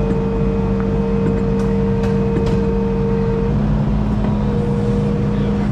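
An engine running at a steady speed, its pitch shifting slightly about three and a half seconds in.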